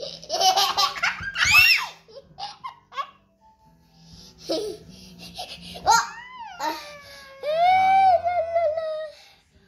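A baby and a young boy laughing, with giggling bursts at first, then long high-pitched squealing calls that rise and fall in the last few seconds.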